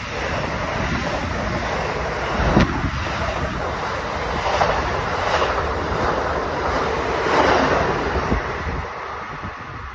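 Amtrak Palmetto passenger train rushing past at speed, with wind buffeting the microphone, a sharp knock a few seconds in, and the sound fading away near the end.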